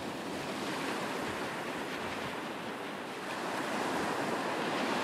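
Sea waves breaking and washing over rocks, a steady rush that swells a little in the last second or two.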